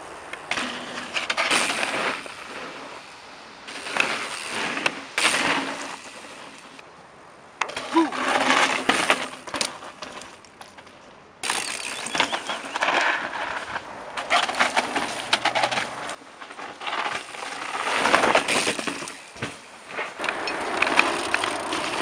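A mountain bike ridden over loose, rocky dirt: tyres crunching and skidding on gravel, with clicks and rattles from the bike, in several separate runs that start and stop abruptly.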